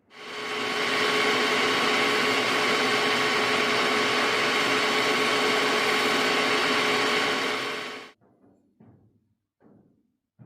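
A small motor-driven tool running at a steady speed with a constant whine. It starts suddenly, holds even for about eight seconds, then cuts off abruptly.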